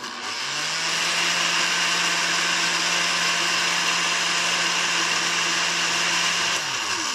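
Osterizer 10-speed countertop blender motor running steadily, blending cucumber and lemon into a green liquid. Shortly before the end it is switched off and the motor winds down, its pitch falling.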